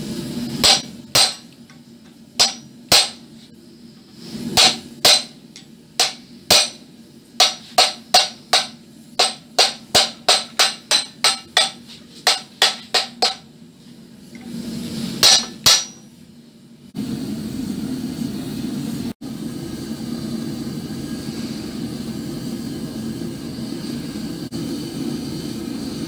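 Hammer striking a wrought-iron ram's head clamped in a steel bench vise: sharp ringing metal-on-metal strikes, with a quick even run of about three a second in the middle. After about seventeen seconds the strikes stop and a steady rushing noise takes over.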